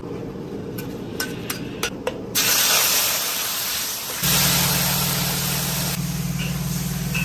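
Hot oil in a wok crackling with a few sharp pops, then a loud sizzle starting suddenly about two seconds in as seasoning fries in the oil and is stirred with a spatula. About four seconds in, a steady low hum joins.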